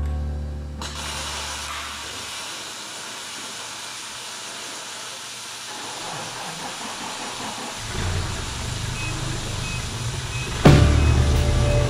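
Steady hiss of a MIG welding arc. Background music fades out at the start and comes back with drum hits near the end.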